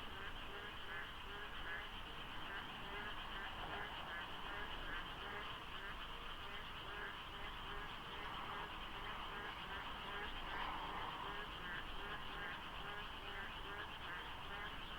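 Dense chorus of frogs croaking over one another, with so many overlapping calls that they are hard to count. Regular croaks repeat a few times a second above a continuous high-pitched trill, with a low steady rumble underneath.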